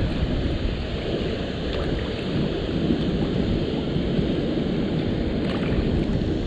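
Wind buffeting the microphone: a steady low rumble with no clear pitch.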